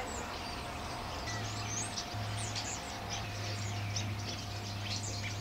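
Small birds chirping and twittering, many short quick calls overlapping throughout, over a steady low hum.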